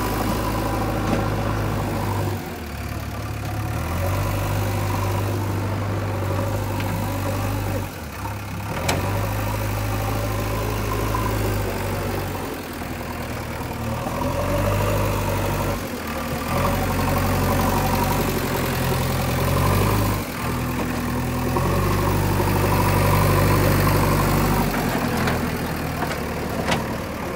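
Diesel engine of a JCB 3DX backhoe loader running as its front loader bucket works soil, the engine note rising and falling every few seconds with the load. Two brief sharp knocks come about nine seconds in and near the end.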